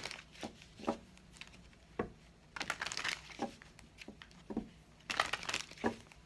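A deck of tarot cards being shuffled by hand: short papery flicks and rustles, with longer bursts of shuffling near the middle and near the end.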